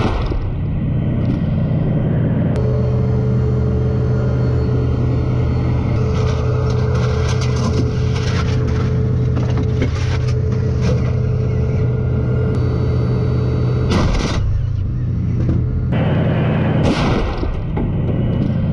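Tank engine running loud and steady with a low hum, broken by a few sharp cracks of the main gun firing, picked up close by a camera mounted on the turret.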